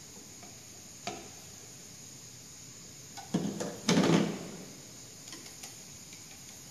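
Plastic kitchenware being handled: a single light knock about a second in, then a short clatter of knocks near the middle as a plastic mixing bowl is set down on the table and the spice-blender jar is picked up.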